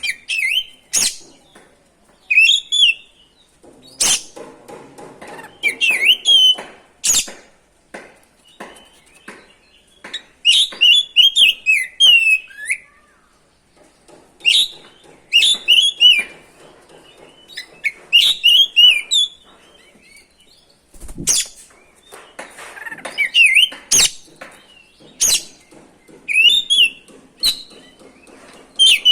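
Oriental magpie-robin (kacer) in full, vigorous song: short phrases of whistled notes gliding up and down, repeated every second or two, with sharp clicks between some phrases. This is song of the kind played to provoke other kacer into singing.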